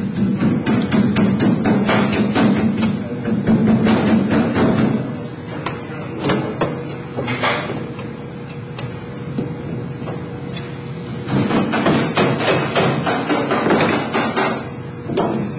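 Thin galvanized sheet-metal duct pieces knocking and rattling against each other in rapid clatters as they are worked together by hand. There are two spells of it, one near the start and one near the end, over background music.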